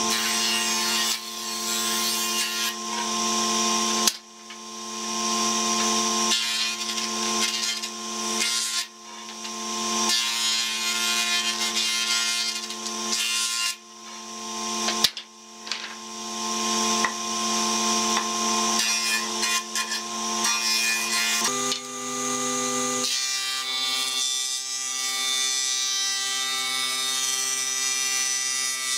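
Electric jointer-planer running with a steady motor hum while pallet-wood boards are fed across its cutter head in several passes. Each pass is a hissing cut that swells and then drops off. Near the end the hum shifts pitch and settles as the machine runs on steadily.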